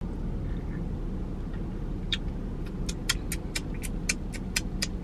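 Steady low rumble of a car idling, heard from inside the cabin. From about two seconds in, a regular ticking starts, about four ticks a second.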